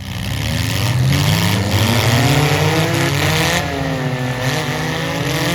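Demolition derby cars' engines revving hard, the pitch climbing, dropping and climbing again, over a broad rushing noise.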